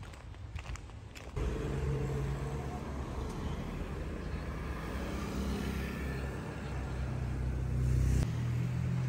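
A few faint clicks, then about a second and a half in a motor vehicle's engine comes in abruptly and runs on as a steady low hum.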